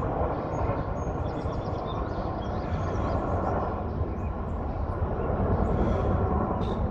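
Two CH-47 Chinook tandem-rotor helicopters flying overhead: a steady, deep rotor and engine noise.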